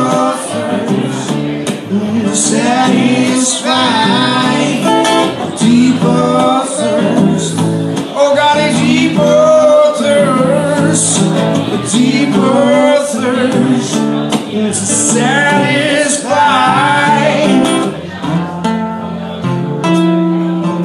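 Live duo of acoustic guitar and hollow-body electric guitar with a man singing a slow melody. Near the end the singing stops and the guitars play on.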